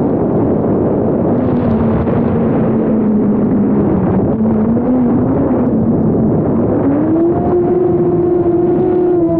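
Motors and propellers of a DJI Mavic Air 2 converted to FPV, buzzing in flight and heard from a camera mounted on the drone. The hum holds steady, then about seven seconds in rises to a higher pitch as the throttle comes up, and stays there.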